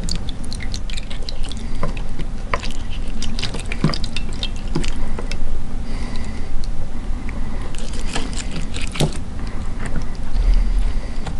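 Wet squelching and irregular clicks as fingers scrape and scoop ground watermelon pulp out of the open mouth of a hand-cranked cast-iron meat grinder. Juice drips and splatters onto the plate below.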